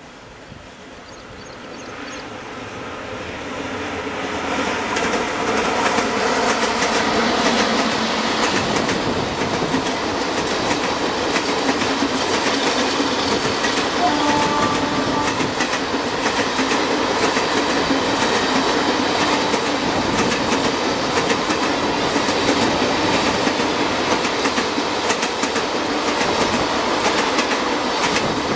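Passenger express train hauled by a WCAM-2P electric locomotive, passing at speed. Its noise swells over the first few seconds as the train nears, then holds as a steady rush of coach wheels with a fast clickety-clack over the rail joints.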